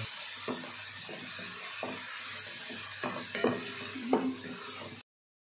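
Onions and shallots frying in oil in a non-stick pan: a steady sizzle, with a wooden spatula stirring and scraping against the pan about five times. The sound cuts off abruptly to silence about five seconds in.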